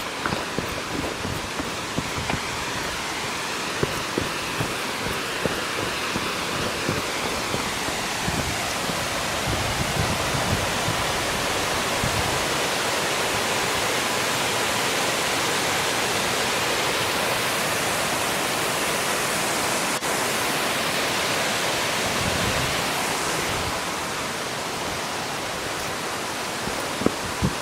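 Cascading waterfall making a steady rushing hiss that grows louder through the middle and eases near the end, with a few faint low knocks near the start and the end.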